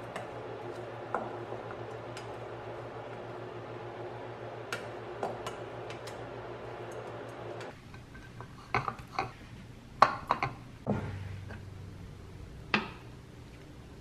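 Serving utensils clinking, tapping and knocking against a ceramic plate and cookware as food is dished up. A steady hum with a few faint clicks gives way about halfway to a run of sharper clinks and knocks, the loudest about two-thirds through.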